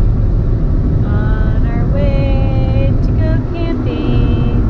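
Steady low rumble of road and engine noise inside a van's cabin, driving at highway speed.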